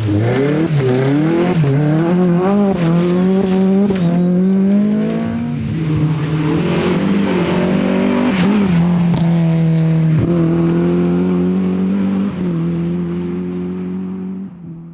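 Rally car engine at full throttle, its pitch swooping up and down through quick gear changes and lifts, then settling into a steadier high note before fading out near the end.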